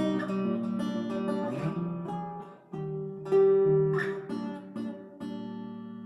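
Epiphone Lil Tex travel acoustic-electric guitar being played: a run of picked chords, with a last chord about five seconds in left to ring out and fade.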